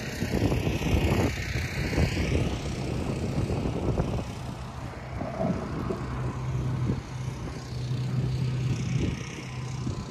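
Footsteps of a person walking outdoors, with a rushing hiss in the first couple of seconds and a steady low hum joining about six seconds in.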